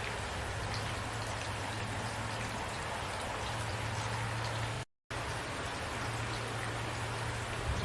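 Steady rain falling, with scattered individual drops ticking over an even hiss and a low steady hum underneath. The sound cuts out completely for a split second about five seconds in.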